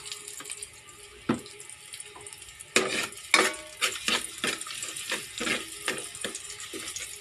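Minced garlic sizzling in oil in a stainless steel pot, with a single knock about a second in. From about three seconds in it is being stirred, and the utensil scrapes and clinks against the pot again and again.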